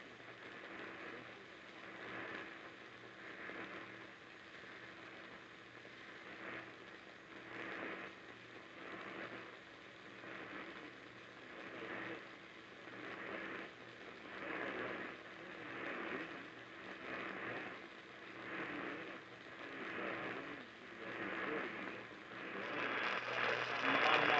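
Static hiss from a radio receiver tuned to a weak, distant station. The hiss swells and fades about once every second or so over a steady low hum, and the signal grows louder near the end.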